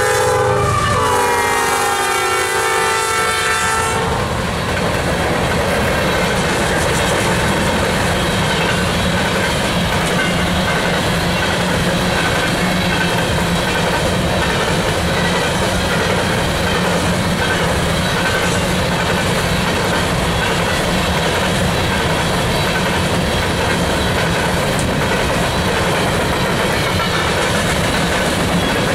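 Nathan P5 air horn on a BNSF GE ES44AC locomotive sounding as the engine passes: its pitch drops about a second in and the horn cuts off about four seconds in. After that comes the steady rolling noise of a long train of empty coal hopper cars going by.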